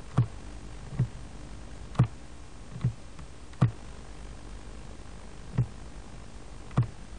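Computer mouse clicking about seven times at irregular intervals, over a steady low electrical hum and hiss in the recording.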